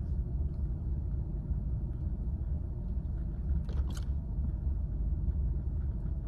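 Steady low rumble, with a brief rustle or click about four seconds in.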